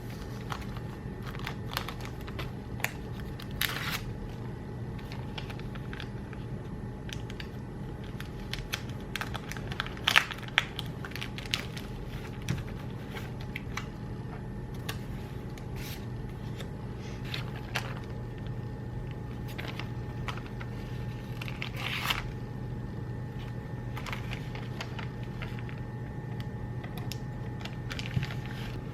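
Crinkling and rustling of plastic sleeves and paper with scattered light clicks, as orders are packed by hand, over a steady low hum.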